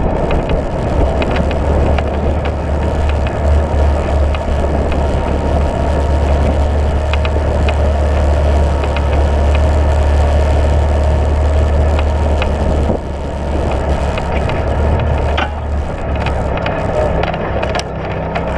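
UTV engine running under way, a steady low drone, with frequent small clicks and knocks from tyres on gravel and the rattling chassis. The engine eases off briefly about two-thirds of the way through.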